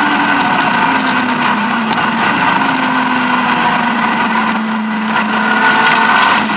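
BMW E36 M3 rally car's straight-six engine heard from inside the cabin, the revs dropping off at the start as the driver lifts, running lower for a few seconds, then building again near the end. A few sharp clicks come in over the last couple of seconds.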